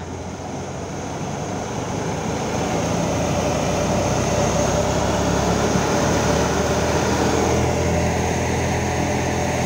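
Tractor-powered wheat thresher with a blower running steadily while wheat stalks are fed in: the tractor's diesel engine hums low, and the drum and blower make a constant rushing churn. It grows louder over the first few seconds, then holds even.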